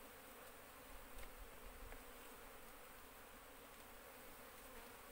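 Faint, steady buzzing of a cluster of Asian honey bees (Apis cerana) massed on the edge of an opened wooden hive box, with a couple of faint clicks about a second and two seconds in.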